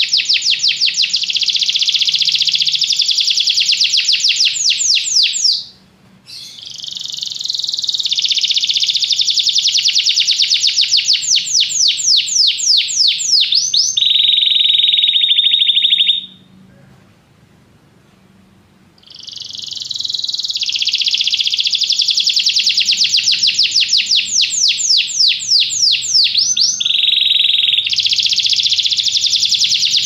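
Domestic canary singing: long phrases of fast trills and rapid falling notes, with a held steady whistle before a pause of a couple of seconds near the middle and a shorter break about six seconds in.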